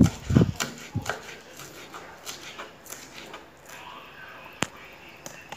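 Kitchen knife chopping spring onion on a wooden cutting board: a few heavy thumps at the start, then scattered light taps as the chopping trails off.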